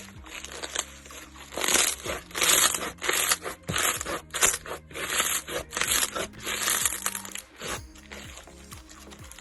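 Slime being squeezed and pressed by hand, giving a run of short crackly bursts, about two a second, from about a second and a half in until near the end, over soft background music with held low notes.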